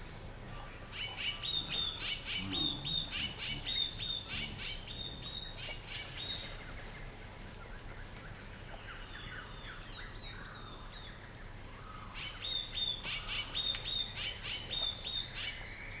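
A songbird singing a short two-note phrase repeated over and over, in two runs: one starting about a second in and one near the end, with fainter chirps between them.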